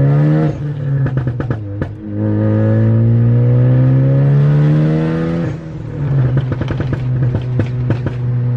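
Big-turbo Ford Focus ST's turbocharged four-cylinder pulling hard through the gears, heard from inside the cabin. The engine note climbs, breaks for an upshift about half a second in, climbs again for about three seconds, breaks for another shift, then holds steady with short crackles.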